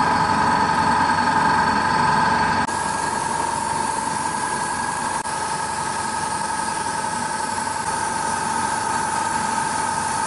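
Airbrush air compressor running with a steady hum, under the hiss of the airbrush spraying paint. The sound steps down slightly about three seconds in.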